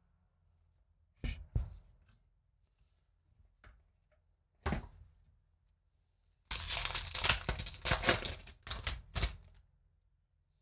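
A few light taps of a card stack handled on the table, then a Magic: The Gathering booster pack's foil wrapper being torn open and crinkled for about three seconds.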